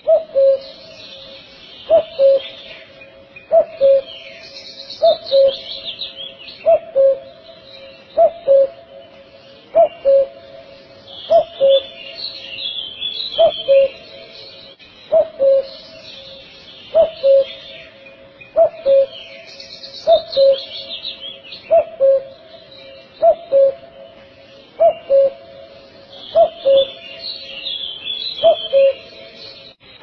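Common cuckoo calling its two-note "cuck-oo", the second note a little lower than the first, repeated evenly about every second and a half. Small birds chirp faintly behind it.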